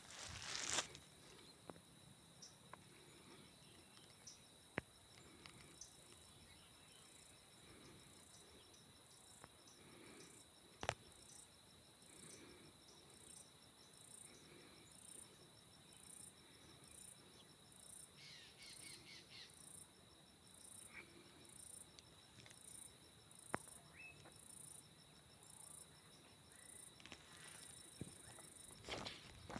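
Insects trilling faintly and steadily, in a high-pitched, pulsing chorus, with a few isolated sharp clicks.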